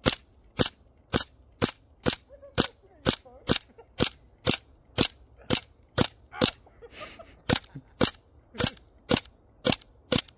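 Airsoft pistol firing shot after shot, about two sharp cracks a second, around twenty in all, with a short break about seven seconds in.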